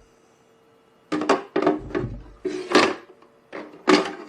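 Plastic water tank being fitted into the back of a De'Longhi La Specialista espresso machine: a run of knocks and clunks starting about a second in.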